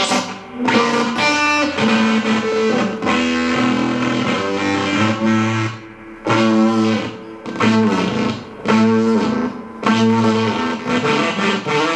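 Electric guitar played through a Barahunda fuzz/noise pedal, with fuzz-distorted chords and notes in phrases of about a second separated by brief gaps.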